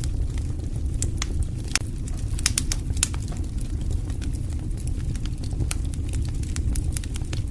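Wood fire crackling: many sharp, irregular pops and snaps over a steady low rumble of burning.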